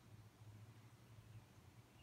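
Near silence, with a faint low hum.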